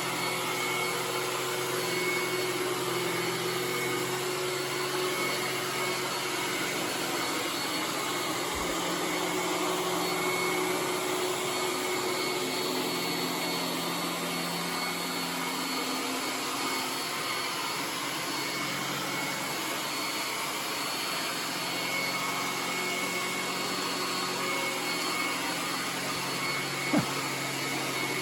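iRobot Roomba S9+ robot vacuum running steadily as it cleans, its motor hum shifting slightly in pitch and level now and then. A brief knock comes near the end.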